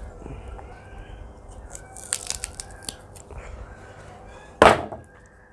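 Domestic chickens calling, with a few light clicks and one short, loud call near the end.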